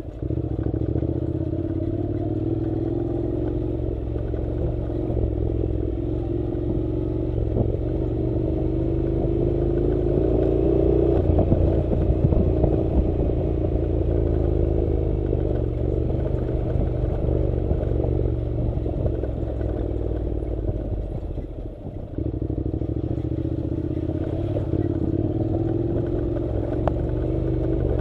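Honda NC700 motorcycle's parallel-twin engine running under steady throttle on a dirt road, its pitch rising slowly over the first ten seconds or so. About three-quarters of the way through the engine note dips briefly, then picks up and runs steadily again.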